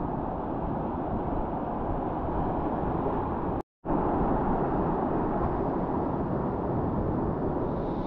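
Muffled, rumbling rush of wind and water on a GoPro's microphone while surfing, broken by a brief total dropout a little past three and a half seconds in. A brighter hiss of surf comes in near the end.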